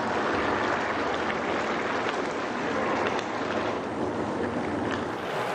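Chicken and broccoli stir-frying in a granite-coated wok, sizzling steadily, with light scrapes and taps of a slotted spatula as the food is tossed.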